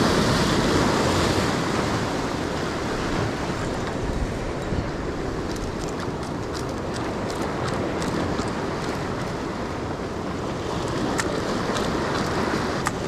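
Waves breaking and washing against jetty rocks, loudest in the first couple of seconds, with wind buffeting the microphone. A scatter of light ticks comes through in the middle and again near the end.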